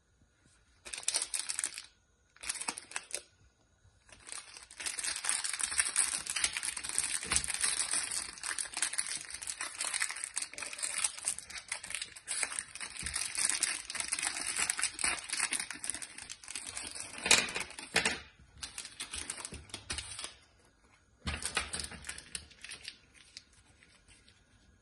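Foil wrapper of a Garbage Pail Kids sticker-and-gum pack crinkling and tearing as it is pulled open by hand: two short crackles, then near-continuous crinkling with one sharper crackle, then a few shorter bursts near the end.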